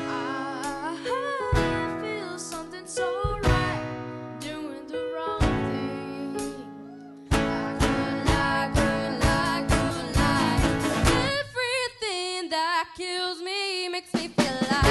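Live pop-rock song: a boy singing lead over strummed acoustic guitar, drum kit and keyboard, the drums keeping a steady beat. About three-quarters of the way through, the drums and bass drop out, leaving the voice over light accompaniment, and the full band comes back in near the end.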